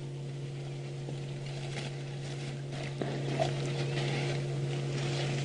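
Steady low hum of an idling game-drive vehicle's engine, with faint crackles and a single knock about three seconds in.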